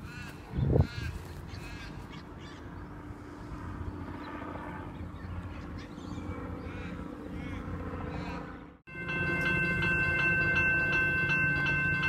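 Birds calling over outdoor background, with a short thump about a second in. From about nine seconds in, General Signals electronic level-crossing bells ring loudly and steadily, a repeating high electronic tone that signals the crossing is active for an approaching train.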